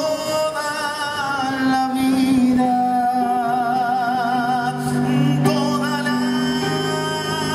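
Live folk ballad: a male singer holds a long wordless note with a wide vibrato over sustained accompaniment chords.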